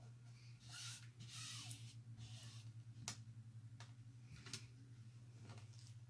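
Faint swishing of hands rubbing a silkscreen stencil flat against a chalkboard to press out air bubbles, a few soft strokes in the first couple of seconds, then two light taps about three and four and a half seconds in.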